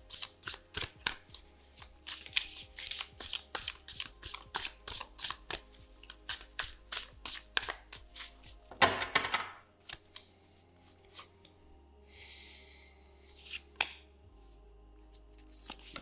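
A deck of tarot cards being shuffled overhand, with quick card taps about four a second for the first nine seconds, ending in a longer rustle. After that comes a soft sliding hiss and a few taps as cards are drawn and laid on a wooden table.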